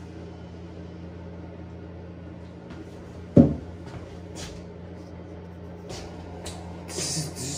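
A single dull thump about three and a half seconds in and a few light clicks, over a steady low hum; the sounds pick up near the end.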